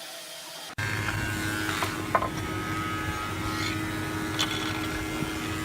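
A steady motor hum starts abruptly about a second in, with a few light clicks and knocks over it.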